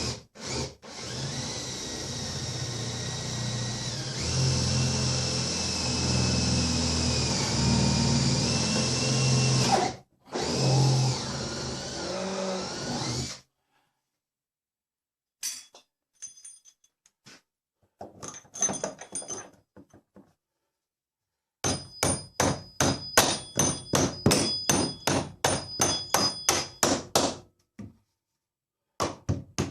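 A handheld power tool's motor runs for about twelve seconds, its pitch dropping and shifting as it takes load. After a pause come a few scattered knocks, then a quick run of hammer blows, about four a second, with more blows near the end.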